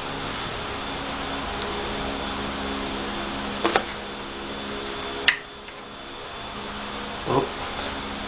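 A small electric motor running steadily, then stopping abruptly about five seconds in. A few sharp clicks of metal or plastic parts are handled around it.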